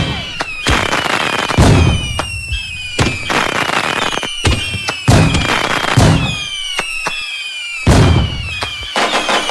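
A fireworks display: loud bursts going off roughly once a second, with whistles falling in pitch between them.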